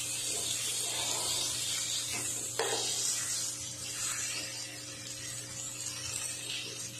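Batter-coated fish shallow-frying in oil on a flat tawa over a low flame, the oil sizzling with a steady hiss. A metal spatula knocks once on the pan about two and a half seconds in as a fish is turned over, with a steady low hum underneath.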